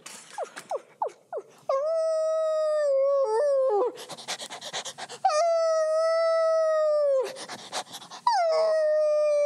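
A person in a dog costume howling like a dog: three long, steady howls, each ending with a falling wobble, with huffing, panting breaths between them.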